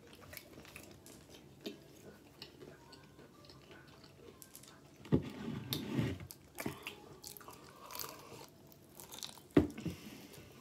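Close-up mouth sounds of someone eating fried chicken: soft chewing with small clicks, then louder crunching bites into the breaded crust, one stretch about five seconds in and a sharp bite near the end.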